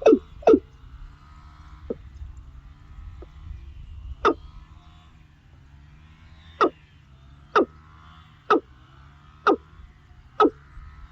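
A bird calling over and over with a short, sharp call: two at the start, one about four seconds in, then about one a second from past the middle on, over a faint chorus of other wild calls.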